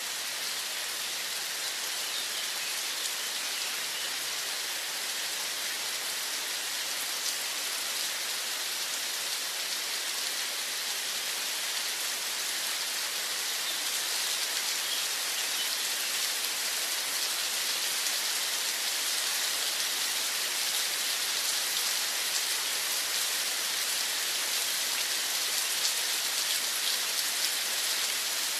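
Steady rain falling, a dense hiss of many small drops that grows slightly heavier about halfway through.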